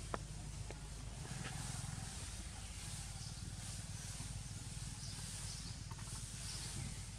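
Steady outdoor background noise: a hiss with a low hum under it, a sharp click just after the start, and a few faint ticks.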